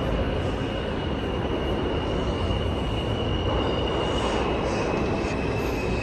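Subway train running in an underground station: a steady rumble with a thin, steady high-pitched whine held over it.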